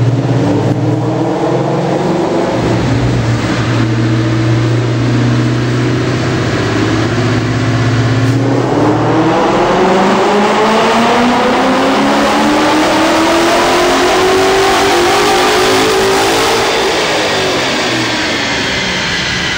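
2011 Ford Mustang GT's 5.0 Coyote V8 running on a chassis dyno: it holds a steady low engine speed in gear for about eight seconds, then makes a full-throttle pull with the note climbing smoothly for about eight seconds, and falls away as the throttle is lifted near the end.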